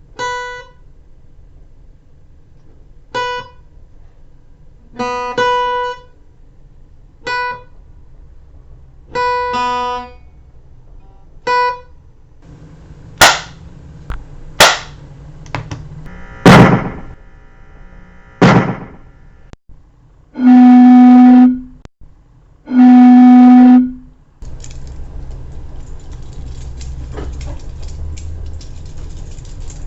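A sequence of separate sound effects: a series of short pitched tones with gaps between them, then four sharp knocks that ring on, two long, very loud, low buzzing tones, and finally several seconds of steady rustling hiss.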